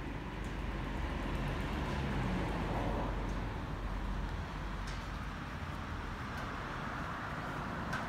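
Steady rumble of distant road traffic, with no distinct events standing out.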